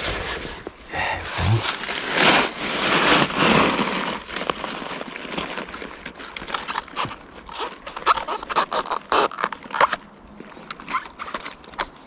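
Close rustling and crackling as wild oyster mushrooms are picked by hand: a broad rustle over the first few seconds, then a quick run of sharp snaps and crackles.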